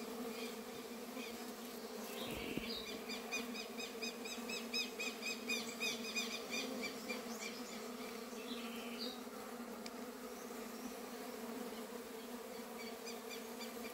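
A swarm of stingless bees buzzing as they fly about and crowd a sugar-syrup feeder: a steady hum. A rapid, high chirping, about four or five notes a second, sounds in the background from about two to seven seconds in and briefly again near the end.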